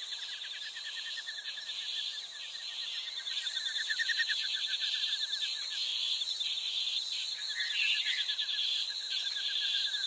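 Chorus of insects buzzing steadily at a high pitch, with a lower, rapidly pulsing trill that fades out about halfway through and comes back near the end.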